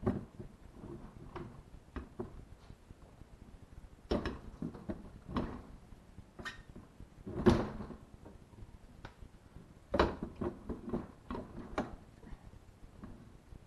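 Irregular metal clunks and knocks as a motorcycle rear wheel is shifted and turned against the shaft-drive final drive, trying to mesh the hub splines. The loudest knock comes a little past halfway, with another about three-quarters of the way through.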